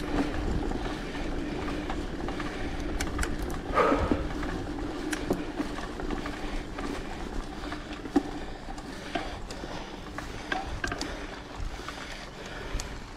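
Mountain bike rolling along a forest trail: steady rolling noise with scattered clicks and rattles as the bike goes over bumps.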